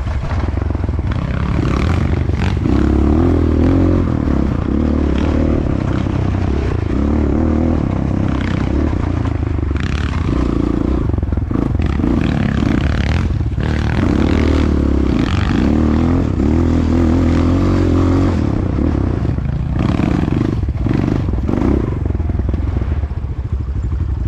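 Enduro motorcycle engine revving up and falling back again and again, with clattering and scraping from the bike over rough ground.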